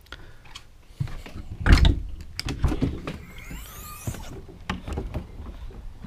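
Motorhome entry door being opened and stepped through, with footsteps down the entry step: a string of knocks and thumps, the loudest a heavy thump about two seconds in. A burst of high chirping sounds in the background around the middle.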